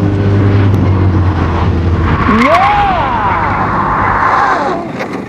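Open-wheel single-seater race car's engine running hard, then about two seconds in the car skids: tyre squeal with a whine that rises and falls, dying away near the end.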